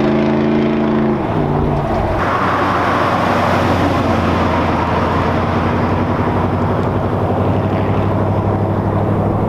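1998 Dodge Durango's 5.2 L V8 through a Cherrybomb glasspack exhaust, held at raised revs and then dropping back to idle about a second in. It then idles with a rough, pulsing exhaust note.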